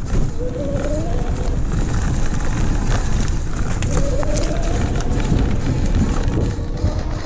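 Wind buffeting the microphone and a steady low rumble as an e-bike rides over a rough dirt trail, with scattered knocks and rattles from the bumps. Twice a short rising whine comes from the bike's 48 V, 250 W rear hub motor under throttle.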